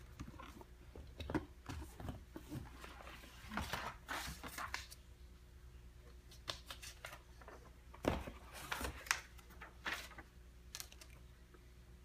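Hands handling a cardboard Nike shoe box, lifting off its lid and moving the packing inside: scattered light knocks, scrapes and rustles. The sounds come in clusters, about four seconds in and again around eight to ten seconds in.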